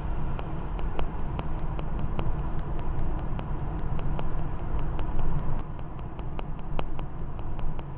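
Car interior road noise while driving at speed: a steady low rumble of engine and tyres heard from inside the cabin, with a faint regular clicking about five times a second.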